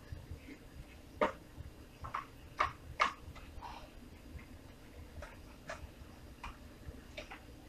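A wooden spoon scrapes and taps against a stainless steel frying pan while stirring sugar that is melting for caramel. The clicks and scrapes are irregular, with the loudest from about one to three seconds in and lighter ones after.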